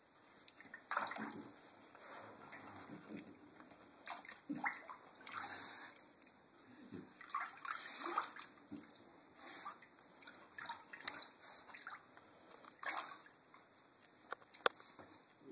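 Shallow bathwater sloshing and splashing in a bathtub as a French Bulldog moves about in it, on and off and uneven, with a single sharp knock near the end.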